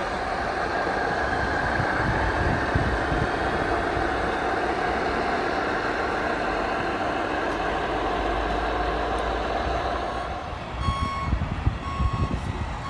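An RC model truck's sound unit plays a steady truck engine sound. From about eleven seconds in, a truck reversing alarm beeps at about one beep a second.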